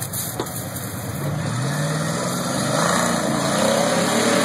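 Rock buggy engine revving, its note rising in pitch from about a second in and growing louder as the buggy drives out of the water and climbs a steep rock ledge under load.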